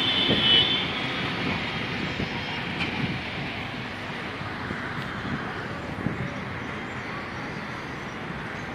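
Busy road traffic below, a steady wash of engines and tyres from buses, cars and motorbikes. A vehicle horn sounds briefly right at the start.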